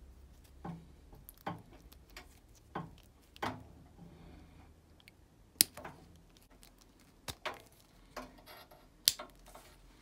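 Wago 222 lever connectors being wired by hand: a scattering of short plastic clicks and taps as the orange levers are snapped shut on the wires, with the sharpest click about halfway through and another near the end.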